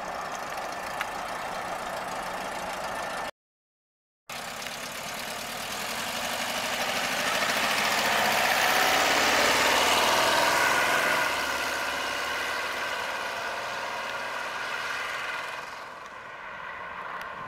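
1969 Volkswagen Type 3's air-cooled flat-four engine as the car drives by, growing louder to a peak about ten seconds in, then fading as it pulls away. The sound cuts out completely for about a second around three seconds in.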